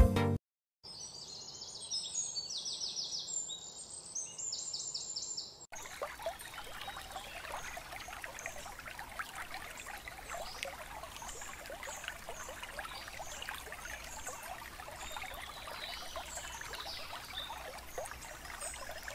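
Outdoor wetland ambience with birds calling. A high, repeated chirping call comes first. After an abrupt cut a few seconds in, scattered high chirps sound over a steady crackling hiss.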